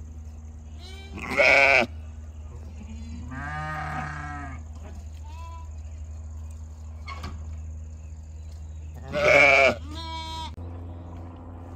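Sheep in a flock bleating: two loud, high bleats about a second in and about nine seconds in, with softer, lower bleats between them.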